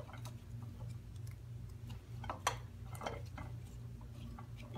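Raw potato pieces clicking against each other and the plate as hands sort through them, with a few sharper clicks a little past halfway. A steady low hum runs underneath.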